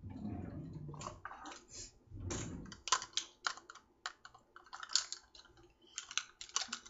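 Plastic measuring cups clacking against each other in quick, irregular runs of sharp clicks as they are handled and sorted through, after a couple of muffled handling rumbles near the microphone.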